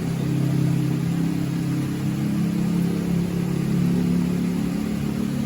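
An engine or motor running steadily with a low, even hum.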